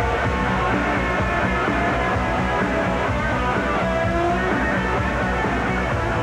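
Rock music with guitar playing at a steady loudness: the show's closing theme.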